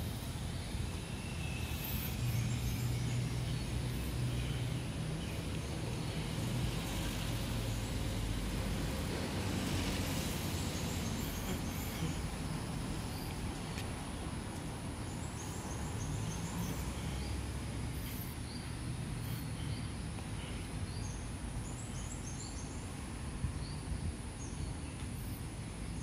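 Steady low background rumble of outdoor ambience, with small birds chirping now and then in short runs of quick high notes.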